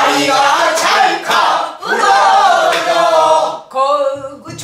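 A group of pansori students singing a phrase together in unison, with strokes of the buk barrel drum keeping the rhythm. Near the end a single voice and a low drum thump carry on.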